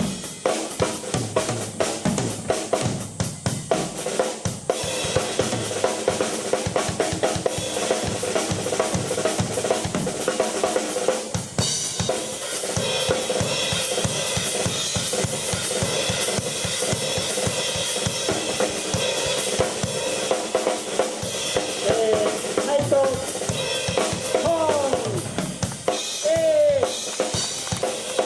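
A keyboard and drum kit playing a rock jam together, with busy drumming on bass drum, snare and cymbals over held keyboard chords. A few sliding notes come in near the end.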